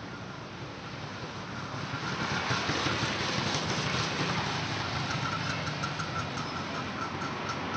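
A motor vehicle's engine running on the street, growing louder about two seconds in.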